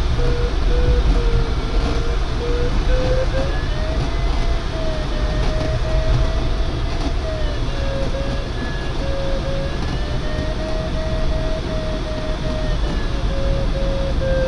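Glider's electronic variometer giving a run of quick beeps, the pitch climbing about four seconds in, dropping near eight, climbing again around ten and dropping near thirteen as the rate of climb in the turn varies. Under it, the steady rush of airflow around the canopy of the DG505 glider.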